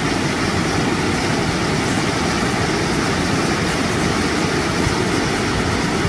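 Waterfall pouring over rocks into a pool: a steady rush of falling, churning water.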